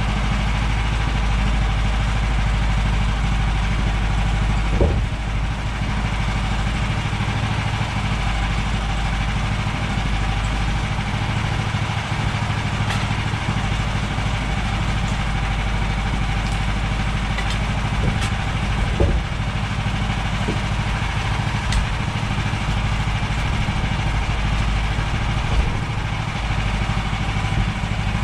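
Gas engine of a manual Woodland Mills portable band sawmill running steadily, with a few short knocks about five seconds in and again around eighteen to nineteen seconds.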